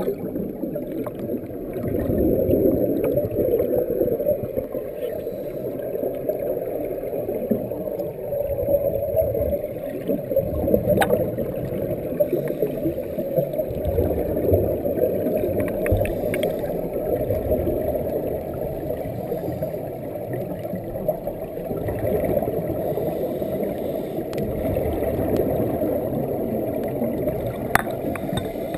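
Muffled underwater wash and rumble with the bubbling of scuba divers' exhaled air rising from their regulators, surging and easing.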